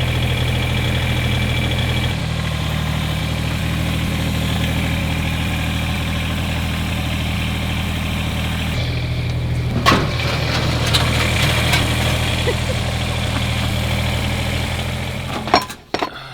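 An engine running steadily, its note shifting slightly about two seconds in and again about nine seconds in, with a few sharp knocks around ten seconds; the engine sound cuts off suddenly near the end.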